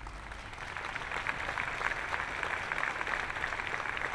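Audience applauding, many hands clapping together, swelling over the first second and then holding steady.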